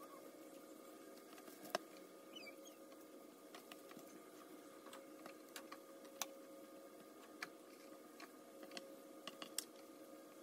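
Faint, scattered small clicks and rustles of plastic-gloved hands rolling stuffed cabbage leaves on a plate, one sharper click a little under two seconds in, over a faint steady hum.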